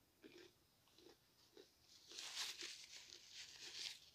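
Close-miked chewing of a fried jalapeño cheddar bite with the mouth closed: a few soft mouth sounds in the first two seconds, then a denser run of crackling in the second half.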